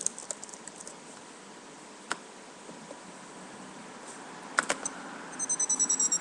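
Scattered clicks of a computer keyboard: a quick run of key clicks in the first second, a single click about two seconds in and a couple more after four and a half seconds, over a faint steady hiss. Near the end a high, rapidly pulsing electronic sound starts, falling slowly in pitch.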